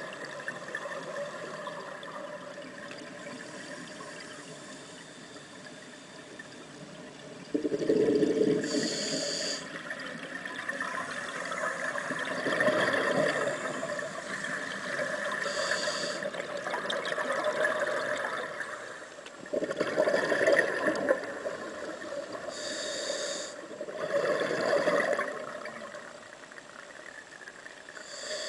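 Scuba diver breathing through a regulator underwater: loud gurgling bursts of exhaled bubbles every few seconds, with short hisses of inhaled air between them, over a steady watery hiss.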